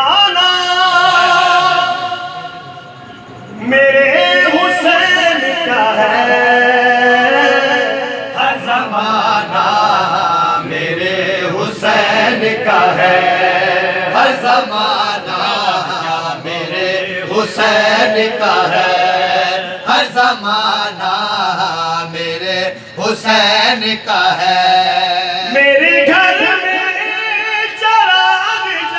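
Men chanting a devotional Urdu recitation in praise of Hussain, a lead voice with others joining in unison, amplified through a microphone. The voices fall away briefly about two to three seconds in, then resume.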